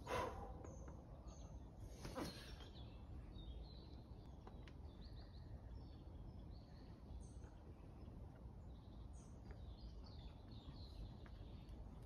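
Quiet forest ambience with faint scattered bird chirps, and two brief scuffs, right at the start and about two seconds in, as a boulderer's shoes and hands meet the rock.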